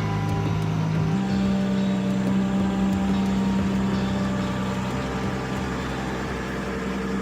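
A vehicle engine running steadily, its pitch stepping up about a second in and then holding.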